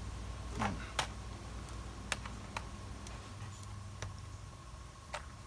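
Small sharp clicks and taps of a screwdriver and fingers on the plastic underside of a Dell Inspiron N5010 laptop, while a hidden screw is worked at: about five separate ticks spread over a few seconds.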